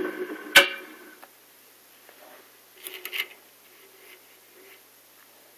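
Metal lathe's motor and spindle running down, the machine sound dying away within about a second, with a sharp click about half a second in. Then faint handling clicks and rustles at the freshly grooved skate wheel.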